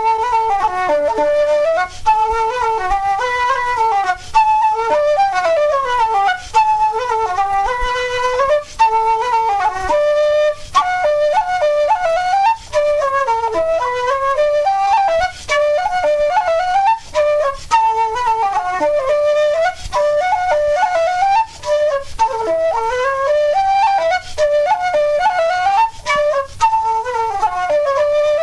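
Solo flute playing a fast, ornamented Irish traditional tune as a single melody line, with brief breaks every few seconds.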